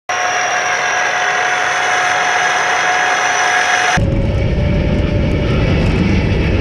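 Tracked self-propelled howitzers driving: a steady mechanical whine from the tracks and drivetrain over engine noise, then, about four seconds in, a close, deep engine-and-track rumble as heard from on top of a moving vehicle.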